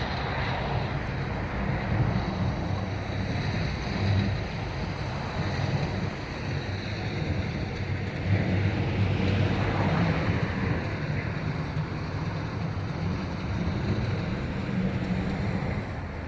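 Wind buffeting the phone's microphone: a steady, gusting rumble of noise.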